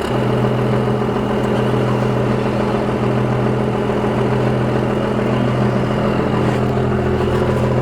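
Vehicle engine running steadily at a constant speed, a low even drone.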